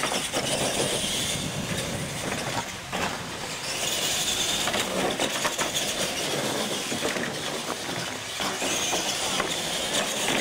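Two radio-controlled monster trucks racing: motors and drivetrains whining, tyres running on asphalt, with clatter and knocks as they bounce over ramps and obstacles.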